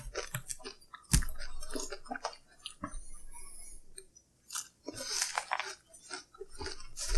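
Close-up chewing and biting of a BLT sandwich and tater tots: irregular crunches and clicks of food in the mouth, with one sharp crunch about a second in.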